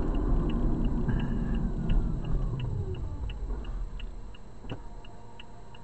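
Car's turn-signal indicator clicking steadily inside the cabin, about three clicks a second. Under it, road and engine noise fade as the car slows to a stop, with a whine falling in pitch.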